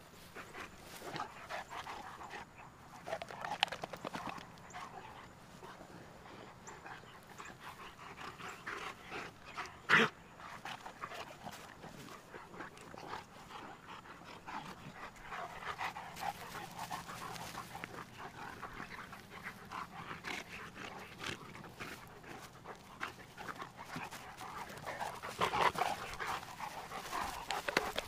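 Two Cane Corsos play-wrestling, panting heavily with short breathy bursts. There is one sharp, short sound about ten seconds in.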